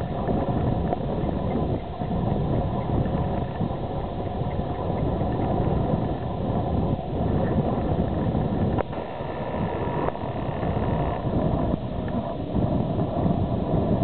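Wind buffeting the camera microphone: a steady, uneven low rush with no voices.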